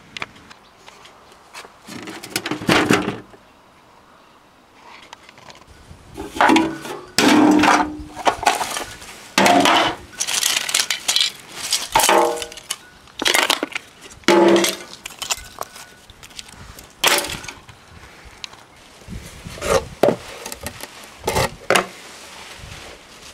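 Irregular clatter of scrap appliance parts being handled and dismantled by hand: plastic housings and metal pieces knocking together, with a few clinks. There is a quieter pause a few seconds in.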